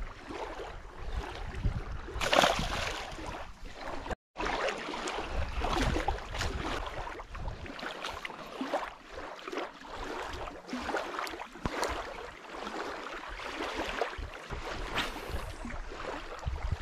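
Wind buffeting the microphone and small waves lapping at the lake shore, uneven and gusty. There is one louder rush about two seconds in and a momentary cut to silence about four seconds in.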